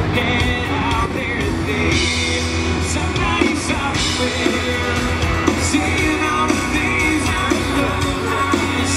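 Live band music through a PA: a man singing into a microphone over guitar and a steady beat.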